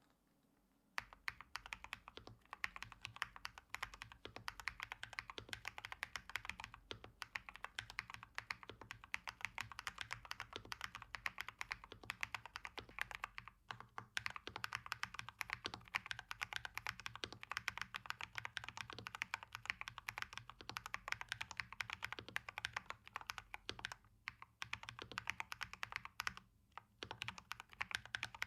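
Fast, continuous typing on a KBD67 Lite mechanical keyboard with original Holy Panda tactile switches. The keystrokes begin about a second in, with a few brief pauses.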